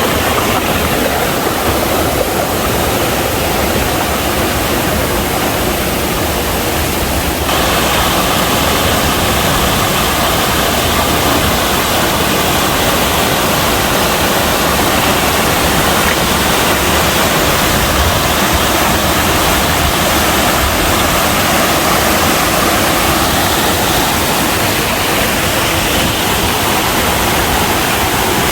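Loud, steady rush of a waterfall and mountain stream cascading over rocks; the rush changes character abruptly about seven seconds in.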